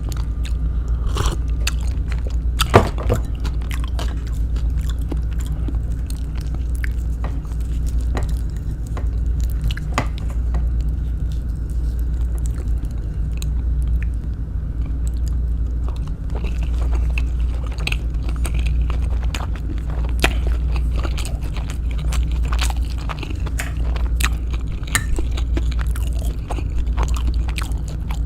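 Close-up chewing and biting into kwek kwek, deep-fried battered quail eggs, with frequent crisp crunches and wet mouth sounds, the sharpest crunch about three seconds in. A steady low hum runs underneath.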